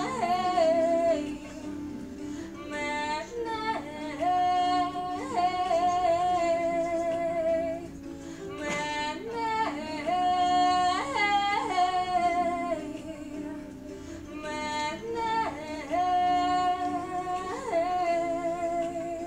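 A young woman singing a slow melody solo, in about four phrases of long held notes with vibrato separated by short breaths, over a quiet steady accompaniment.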